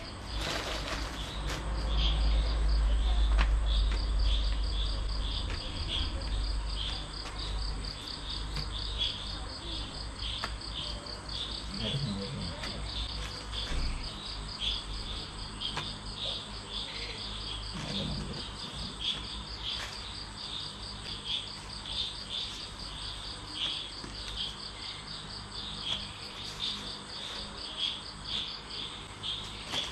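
Crickets chirping in a steady, evenly repeated pattern over a continuous high trill. A low rumble runs under it for the first several seconds.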